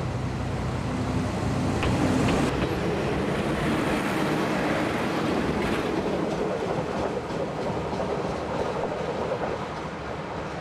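JNR KiHa 52 diesel railcar passing close and pulling away on departure: the diesel engine's drone at first, loudest about two seconds in, then the wheels rumbling and clicking over the rail joints, slowly fading as the railcar moves off.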